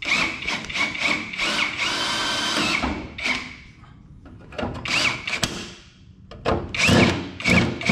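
Power drill with a step bit drilling out the pop rivets that hold a headlight housing. It runs in bursts: one long run of about three seconds, then several shorter ones, with the motor's whine rising and falling in pitch as the bit bites and the trigger is worked.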